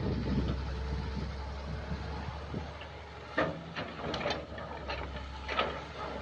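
Kobelco SK07 hydraulic excavator's diesel engine running steadily as its bucket digs through mud and piled plant debris. Several sharp cracks and knocks sound over it, the loudest about halfway through and another near the end.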